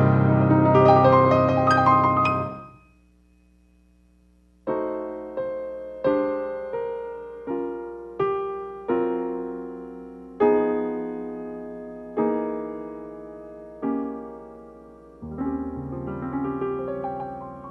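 Solo piano playing slowly. A passage of chords fades out about three seconds in and there is a short pause. Then single notes and chords are struck one at a time, each left to ring and decay, and fuller chords return near the end.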